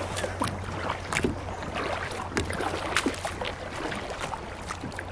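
Kayak paddling: paddle blades dipping into the creek water with small splashes, drips and occasional light knocks, in an irregular rhythm.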